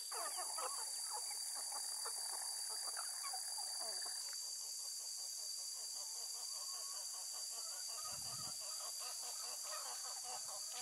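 A steady, high-pitched insect drone with many short, quick bird calls over it, busiest in the first few seconds.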